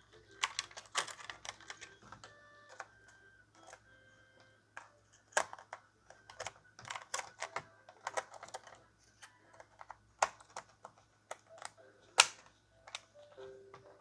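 Irregular sharp clicks and taps of plastic and metal laptop parts being handled as RAM modules are pressed back into their slots in an old Acer laptop.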